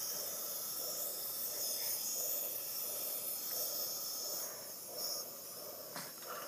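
Hospital nebulizer hissing steadily as it feeds medicated mist through corrugated tubing into a baby's mouthpiece, with soft breaths pulsing about every half-second. A small click near the end.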